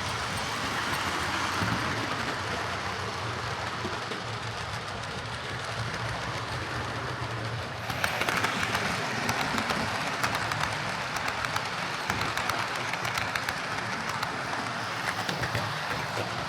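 Hornby OO gauge Class A1 model steam locomotive running along track, its motor humming steadily. About eight seconds in the sound gets louder, with rapid clicking from the wheels on the rails.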